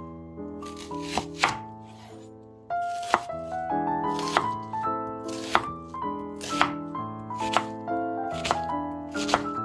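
Chef's knife slicing through a halved onion and striking a bamboo cutting board, about one cut a second, over background music.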